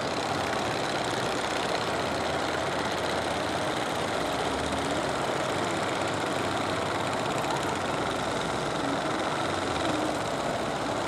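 Fishing boat's engine running steadily while the boat is under way, a constant, unchanging drone.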